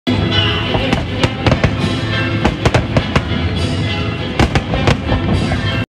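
Fireworks display going off: a dense, irregular string of bangs and crackles, several a second, with music playing underneath.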